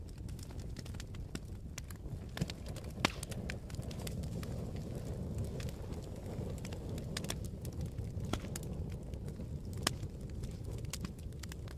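Wood fire burning in a fireplace: a steady low rumble of flames with frequent small crackles and pops, two sharper pops about three seconds in and near the end.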